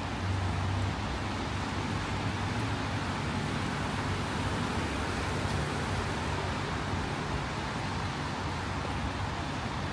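Steady city street traffic in the rain: a low hum of passing car engines under an even hiss of tyres on wet road.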